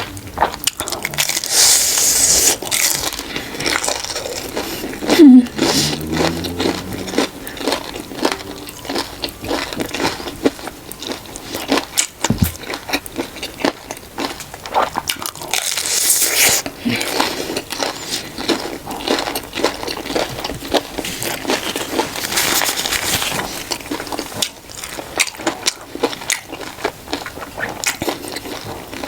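Close-up eating sounds: crunchy biting and wet chewing of a homemade cheese corn dog, with many small clicks and a few bursts of crunching. A short voiced sound, the loudest moment, comes about five seconds in.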